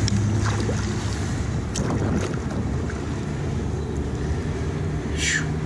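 Steady low wind rumble on the microphone with river water lapping against a kayak's hull, and a few light knocks.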